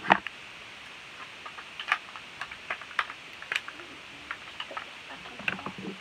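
Scattered light clicks and taps of objects being handled and set down on a tabletop, with a sharper knock at the start.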